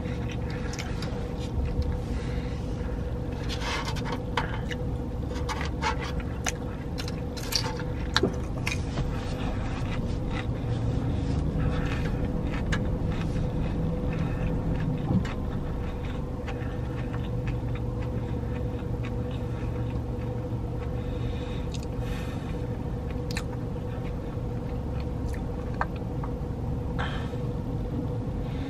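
Steady low hum of a car cabin with its engine idling, with scattered small clicks, crunches and rustles from chewing fried food and handling a food tray.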